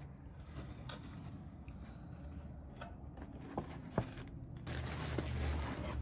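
Cardboard shoebox being opened: the lid scrapes off, and the paper and tissue wrapping inside rustle. There are two sharp clicks about three and a half and four seconds in, and the handling gets louder near the end.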